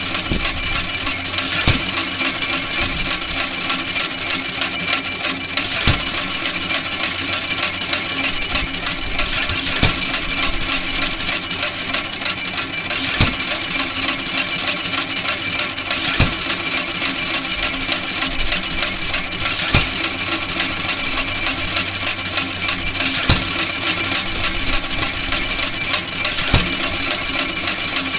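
1917 Economy hit-and-miss stationary gas engine running. It fires with a strong stroke about every three to four seconds, eight times in all, and coasts in between with a steady light clicking. Firing only now and then is the hit-and-miss governor at work: the engine fires only when the flywheels slow.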